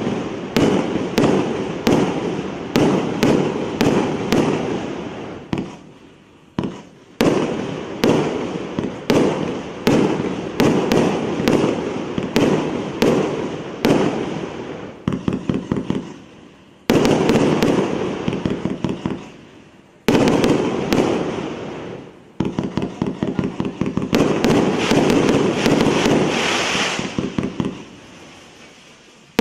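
A 348-shot, 1.25-inch consumer firework cake (two-box battery) firing shot after shot, about two a second, each report tailing off. Several quick rapid-fire volleys come through the middle and later part, with short lulls between sequences.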